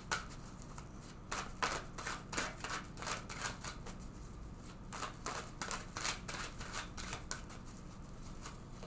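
Tarot deck being shuffled by hand: a quick, irregular run of soft card slaps and flutters, several a second, easing off briefly in the middle.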